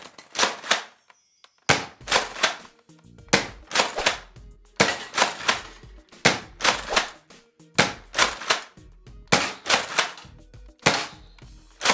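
Nerf Rotofury pump-action dart blaster, modified to fire Elite darts, being shot repeatedly. It makes a quick string of sharp plastic clacks from the pump strokes and shots, in groups of two to four, as darts knock down the plates of an electronic pop-up target.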